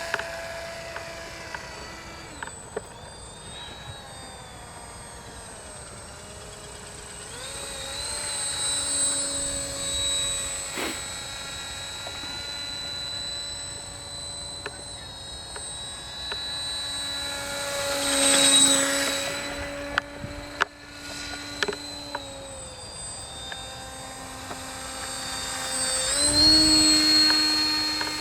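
Radio-controlled autogyro in flight: a steady motor-and-propeller whine that shifts up and down in pitch with the throttle. It swells louder three times, at about 9, 18 and 27 seconds in, as the model passes close.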